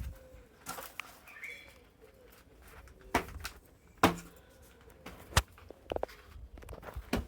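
Footsteps on a dry forest floor: about half a dozen irregular sharp cracks and crunches, the loudest a little after three and four seconds in. A bird calls faintly in the background.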